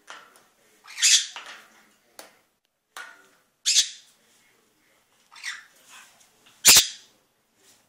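Blue-and-gold macaw giving a string of short squawks at uneven intervals, the loudest about a second in, near the middle and near the end.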